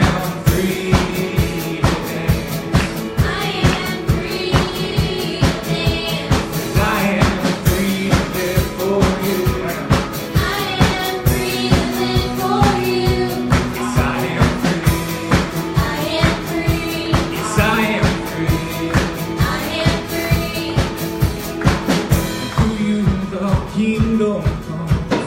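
Live church worship band playing an upbeat song with drum kit and singing, the drums keeping a fast, even beat.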